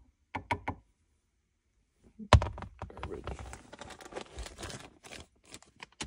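A few quick clicks, then after a short pause a sharp knock followed by irregular light clicking, rattling and rustling: hands handling shifter parts inside the car.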